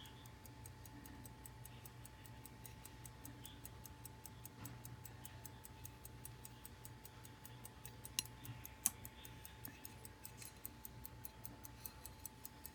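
Hampden Grade 104 23-jewel pocket watch ticking steadily at about five ticks a second, faint, with a couple of louder clicks about eight and nine seconds in.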